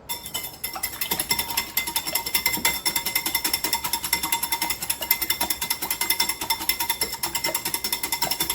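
Whisk beating two raw eggs in a bowl: a rapid, steady clatter of strokes against the bowl, starting at once and keeping up an even pace.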